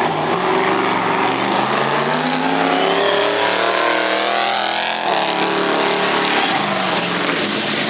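Mud truck engine running hard as the truck drives past, its pitch falling as it goes by, then changing suddenly about five seconds in as it pulls on through the mud pit.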